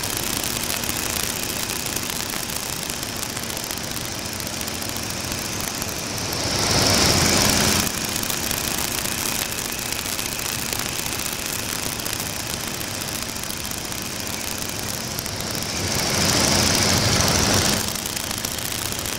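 Stearman biplane's radial engine running steadily in flight, mixed with the rush of wind past an open cockpit. The sound swells louder twice, about six and sixteen seconds in, each time for a second or two before dropping back suddenly.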